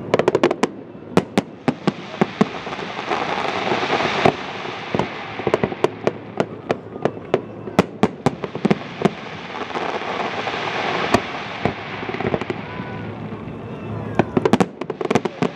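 Fireworks display: aerial shells bursting in a rapid, irregular string of sharp bangs over a steady background rush, with a dense flurry of bangs near the end.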